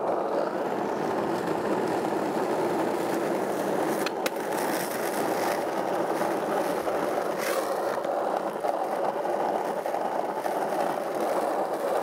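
Skateboard wheels rolling steadily over asphalt road, a continuous rough rumble, with two brief clicks, one about a third of the way through and one past the middle.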